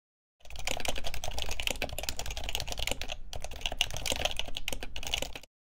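Computer keyboard typing: rapid key clicks that start about half a second in, break off briefly a little past three seconds, and stop near the end.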